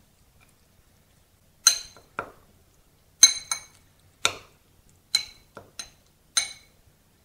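Metal spoon clinking against a ceramic bowl while stirring food in it: about eight short, bright, ringing clinks at irregular intervals, the loudest a little past the middle.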